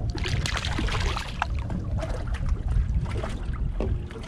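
A hooked speckled trout splashing at the surface beside a boat's hull as it is grabbed and lifted out, water slapping and dripping in many small crackles over a low steady rumble.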